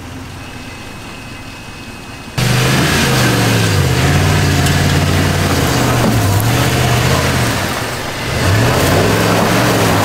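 Ram 1500 Rebel pickup's 5.7 Hemi V8 revving up and down again and again. It comes in suddenly about two and a half seconds in, after a quieter stretch with a faint steady high whine.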